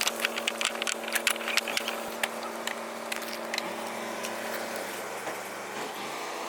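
A motor running with a steady hum that shifts pitch a couple of times, with a quick run of sharp clicks and scrapes in the first two seconds or so.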